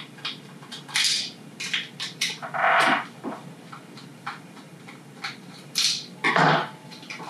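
Screwdriver clicking and scraping in a plastic hand-pendant housing while the small Torx screws of a capacitor hold-down strap are loosened: scattered light clicks and taps, with louder scraping handling noises about three seconds and six and a half seconds in.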